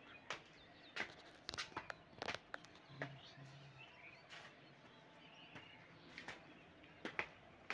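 Quiet outdoor ambience: faint bird chirps over a low background noise, with scattered sharp clicks and taps throughout.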